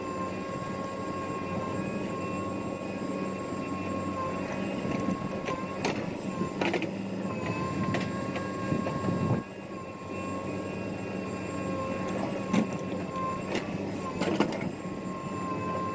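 Heavy diesel machinery running steadily with a high, steady whine, and several sharp clanks and knocks of metal.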